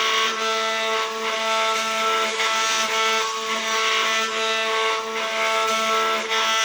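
CNC router spindle running with a steady whine made of several tones, its bit cutting into a wooden door panel with a rough noise that swells and eases as the tool moves through the carving.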